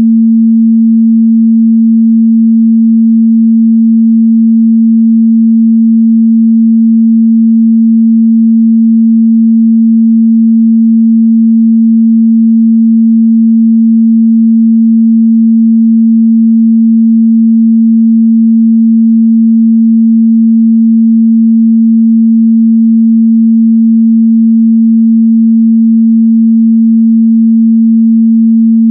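A 226 Hz sine-wave test tone: one pure, steady low hum that holds constant in pitch and loudness.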